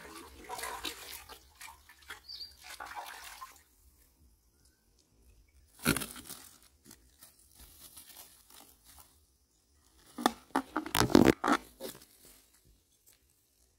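A hooked fish splashing at the water's surface, then the landed fish flopping in dry grass and weeds, rustling and crunching against the plants, with a loud flurry of slaps about ten to twelve seconds in.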